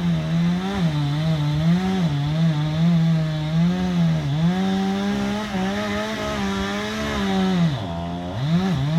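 Two-stroke chainsaw running at high revs while cutting into a cottonwood trunk, its pitch wavering up and down under load. About eight seconds in it drops briefly toward idle and then revs straight back up.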